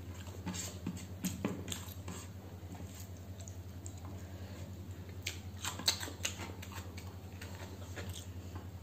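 Fingers scraping and gathering leftover rice across a plate while eating by hand, giving scattered small clicks and taps, a quick cluster of them a little past the middle. A steady low hum runs underneath.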